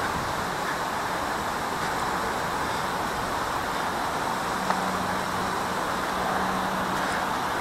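Steady hiss of road traffic. A low, even hum joins in for a couple of seconds in the second half.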